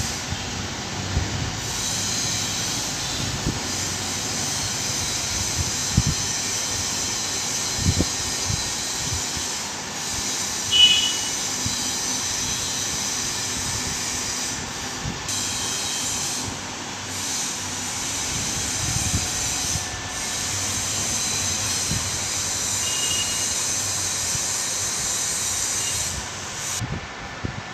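Steady hiss of room or fan noise, broken by a few light knocks and clicks as small fibre-splicing tools are handled.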